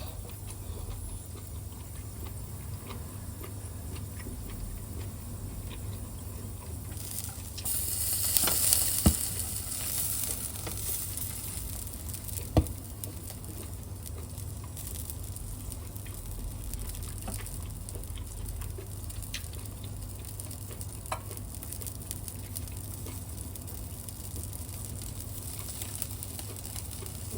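Pork shoulder loin sizzling on an electric shichirin grill over a steady low hum. The sizzling swells louder for a few seconds about a third of the way in, with a couple of sharp clicks around then.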